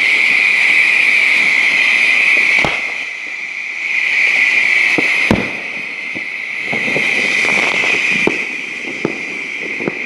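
Fireworks going off overhead: a steady hiss with sharp bangs about three, five and eight seconds in, the one near five seconds the loudest, and scattered smaller crackling pops in the last few seconds.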